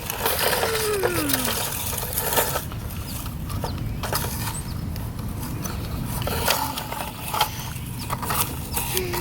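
Plastic toy front loader scooping in dirt and sand: its bucket scrapes through the soil, with many short clicks and knocks from the plastic parts and grit.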